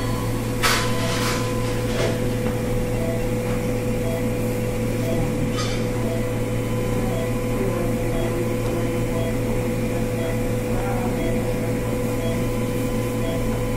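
Steady electrical and mechanical hum of hospital room equipment, with a faint tone pulsing about one and a half times a second and a light click or two.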